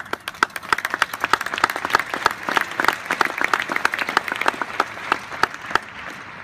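Audience applauding: a crowd of many people clapping, starting at once and dying away near the end.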